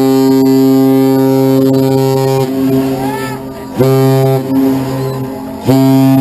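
Great Lakes freighter American Century's ship whistle sounding a master's salute: one long, deep blast, then two shorter blasts, each trailing off more faintly.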